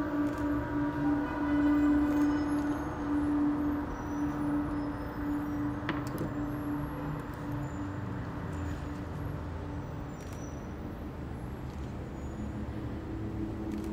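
Large gong and metal singing bowls resonating: a sustained ringing tone with a slow pulsing waver fades away over several seconds above a low rumble. There is a single click about six seconds in, and a new tone swells near the end.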